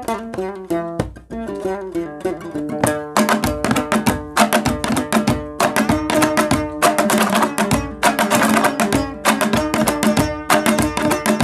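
Dambura, the Afghan long-necked two-string lute, played solo in Laghmani style. A picked melodic phrase steps down in pitch, then about three seconds in it breaks into fast, louder rhythmic strumming.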